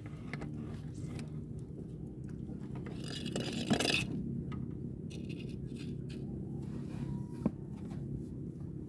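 Close handling noises of fishing tackle, scraping and rustling as hands work the hook, line and spinning reel, loudest about three and a half seconds in, with one sharp click near the end. A steady low hum runs underneath.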